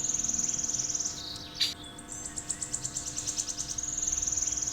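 High-pitched, fast chirping trill like a cricket's, heard twice with a short sharp chirp between, over a faint steady hum.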